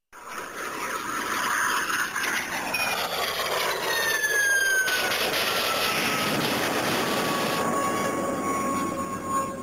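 Electronic sound effect from an Ultraseven key toy: a sudden rushing noise with a long whistle that falls slowly in pitch.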